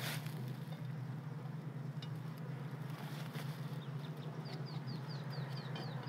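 A bird calls a quick run of about eight short, falling chirps in the second half, over a steady low hum and a few faint clicks.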